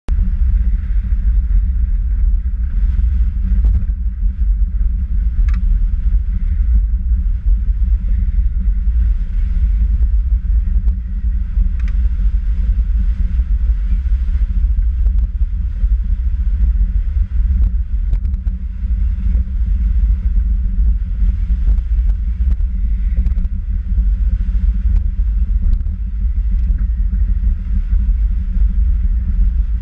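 Steady low rumble of a velomobile rolling along a paved road at around 30–37 km/h: tyre and wind noise, with no engine.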